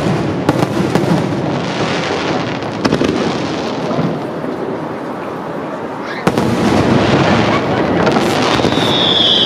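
Fireworks display: aerial shells bursting in quick succession over a constant crackle, growing louder about six seconds in. A high whistle sets in near the end.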